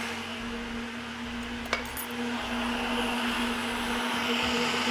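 Countertop blender motor running steadily, grinding a green chili and coriander chutney into a fine paste, with one sharp click a little under two seconds in.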